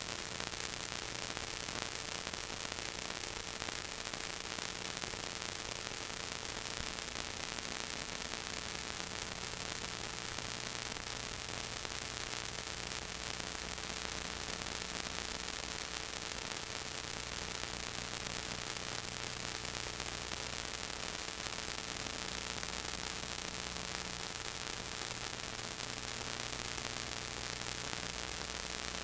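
Steady static hiss with a faint constant hum and a thin steady tone, the noise of the transfer of a silent 8mm home movie rather than any sound from the scene.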